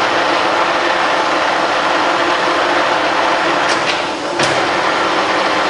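Colchester Triumph 2000 geared-head lathe running steadily with its spindle set to 45 rpm, the headstock gearing giving a steady whir. A couple of sharp clicks come about four seconds in.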